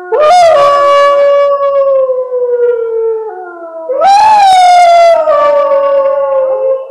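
Canine howling: two long howls, each rising quickly and then sliding slowly down in pitch, the second starting about four seconds in, with a second, lower howl running beneath them.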